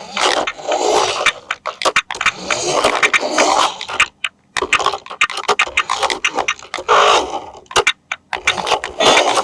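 Hands handling toy packaging and plastic parts during an unboxing: a busy run of crinkles, clicks and scrapes, pausing briefly twice.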